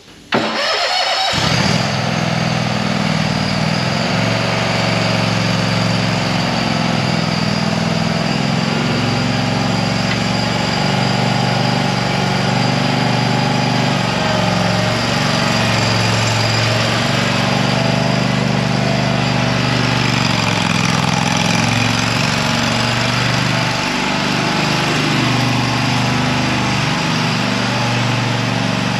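Exmark Radius zero-turn mower engine starting about a second in, then running steadily, its pitch wavering a little as the mower is driven around.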